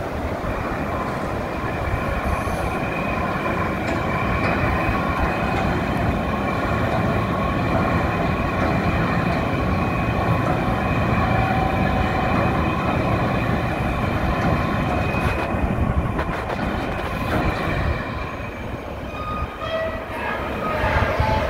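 Steel wheels running on rails: a heavy, steady rumble with a high, sustained squeal, as a rail vehicle moves. It dips briefly near the end, then new squealing tones come in.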